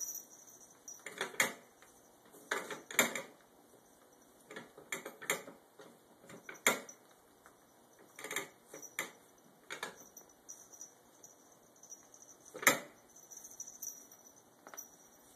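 Kitten tussling with a plush toy on a tiled floor: irregular scuffles, scratches and clicks of claws and paws on the tile, with a sharper knock near the end.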